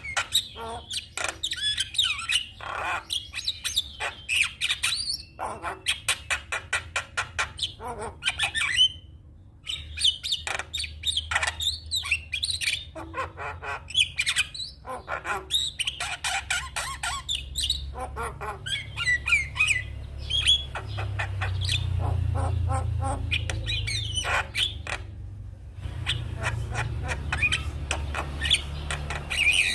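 Javan myna singing a rapid, varied run of harsh squawks, chatters and whistled notes, with two brief pauses. A low rumble runs underneath and swells past the middle.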